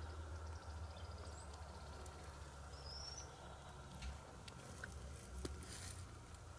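Faint woodland ambience: a steady low wind rumble, with a songbird's short high chirp about three seconds in. A few small clicks and a brief hiss follow near the end.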